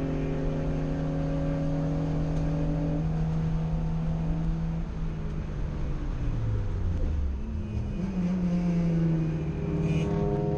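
Race car engine heard from inside the cockpit, held at steady high revs, then falling in pitch as the car slows about halfway through and climbing again as it accelerates away.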